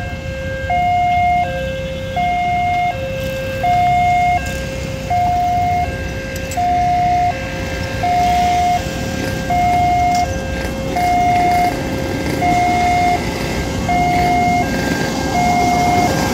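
Railway level-crossing warning alarm sounding continuously, alternating a higher and a lower tone about every three-quarters of a second. Near the end the motor of an approaching rail inspection trolley grows louder beneath it.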